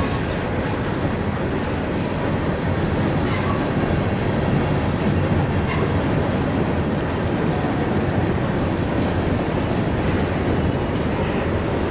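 Covered hopper cars of a long freight train rolling past at close range: a steady rumble of steel wheels on rail, with a few faint clicks.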